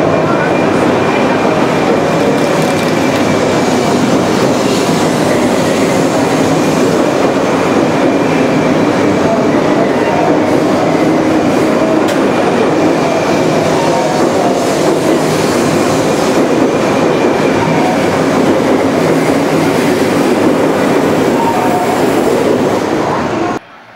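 Shinkansen 200 series bullet train moving along a station platform close by: a steady, loud rumble and hiss of wheels on rail with a faint high steady tone above it. It cuts off abruptly near the end.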